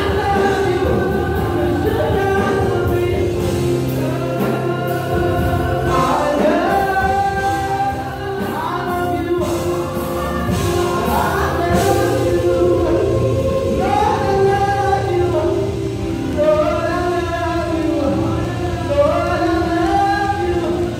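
Gospel singing in a worship service, voices carrying a melody over sustained instrumental accompaniment.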